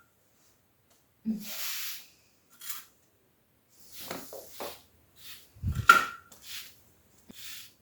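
Grout being worked over a ceramic tile floor: a series of separate scraping and rubbing strokes, with a sharp knock about six seconds in.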